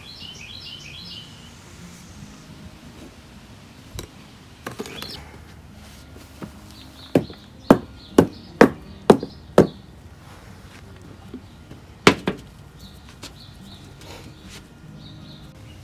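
A run of about six sharp knocks about half a second apart, then one more a few seconds later: the form full of wet concrete being knocked to vibrate the mix and drive out air bubbles. Birds chirp faintly near the start and again during the knocks.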